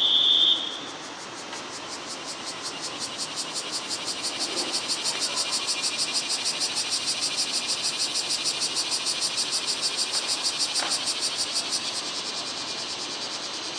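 Cicada singing: a fast, evenly pulsing high buzz that swells over several seconds, holds and dies away about twelve seconds in. A short high beep sounds at the very start.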